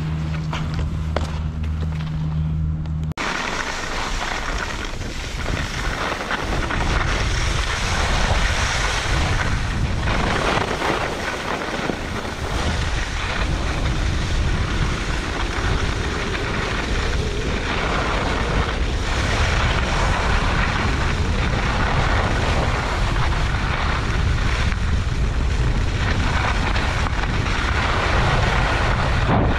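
Wind buffeting an action camera's microphone with the hiss and scrape of skis on packed snow, as a skier runs down a groomed slope; it begins abruptly about three seconds in, after a steady low hum, and stays loud and rumbling.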